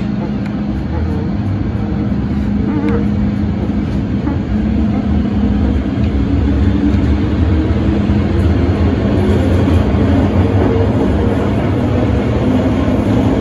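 MTR Island Line M-train running through a tunnel, heard from inside the carriage: a steady low rumble with a held hum, growing slowly louder.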